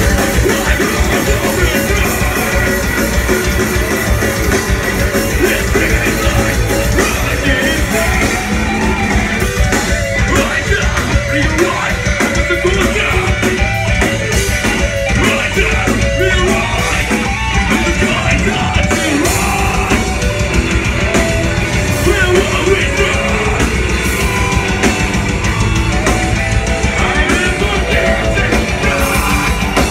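Metalcore band playing live and loud: distorted electric guitars, fast drumming and a vocalist singing into a microphone.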